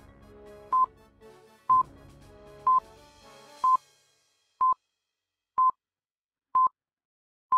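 Countdown stopwatch sound effect: a short, high electronic beep once a second, eight beeps in all, over soft background music that fades out about four seconds in, leaving the beeps alone.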